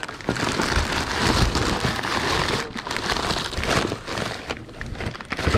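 Cardboard box being opened and its contents handled: continuous irregular crackling and rustling of cardboard and paper, with small knocks.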